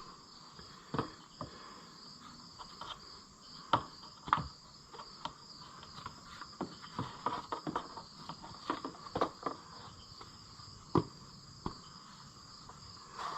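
Crickets chirping steadily in the background, with scattered light clicks and knocks throughout, the sharpest about four seconds in and again near eleven seconds.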